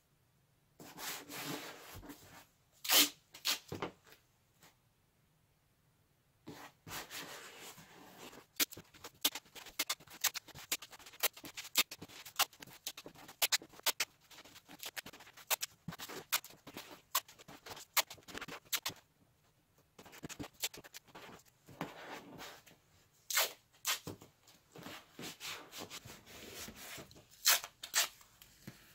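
Irregular rustling and rubbing of material being handled, broken by many sharp clicks and ticks, with a brief quiet spell a few seconds in.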